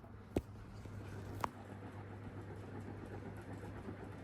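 GEC Relite industrial ceiling fan running, a steady low hum with a rough grinding rumble from its worn, crunchy bearings. Two faint clicks come about half a second and a second and a half in.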